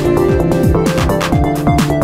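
Electronic background music with a steady, fast beat and synth chords.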